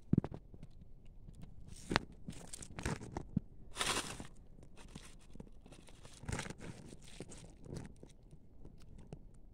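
A kitten rummaging and biting at something in dry leaf litter: irregular crunching and crackling, with a longer rustle about four seconds in.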